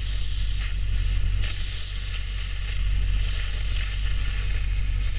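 Steady hiss of compressed air being bled from an air horn tank, the pressure falling toward the switch's cut-in point, over a low rumble.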